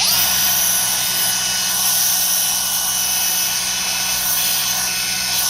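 Milwaukee M18 125 mm brushless cordless angle grinder switched on, spinning straight up to a steady high whine and free-running with no load. The grinder is brand new, and its owner finds its motor tight and bound up, and already warm.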